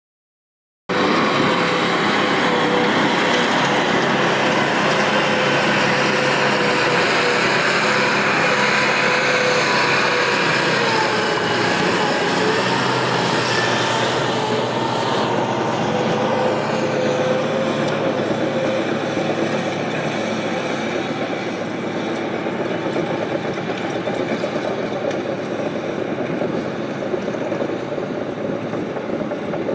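Heavy earthmoving machines at work: the twin Detroit Diesel 4-71 two-stroke engines of Terex TS-14B scrapers running under load, along with a crawler dozer. The noise is loud and steady, easing off somewhat after about fifteen seconds.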